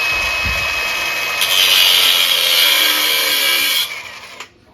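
Cordless angle grinder cutting through a quad's metal frame cross member: a steady motor whine under a harsh grinding hiss that gets louder about a second and a half in, then the tool stops and spins down near the end.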